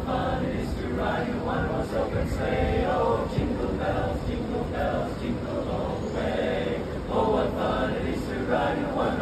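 Mixed choir of men and women singing a Christmas carol together in the open air, many voices on sustained, changing notes.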